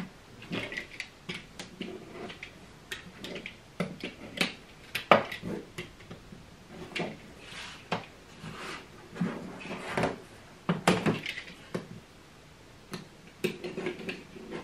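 Hand work with sewing cutting tools on a cutting mat: irregular sharp clicks and knocks of a plastic quilting ruler and rotary cutter being picked up and set down, with cotton fabric rustling as it is moved. Near the end the rotary cutter is run through the fabric.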